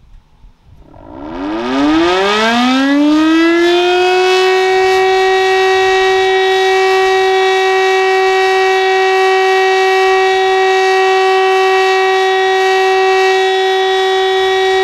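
Electric rotor-type civil-defence siren winding up during a siren test: its pitch rises over about three seconds, then it holds a loud, steady, rough-sounding tone.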